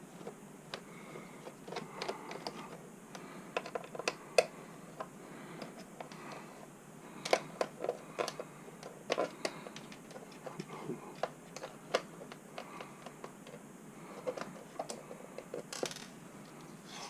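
Phillips screwdriver working the screws out of the plastic bottom case of an Asus X551CA laptop: irregular light clicks and taps, with a few louder clusters about seven to nine seconds in and again near the end.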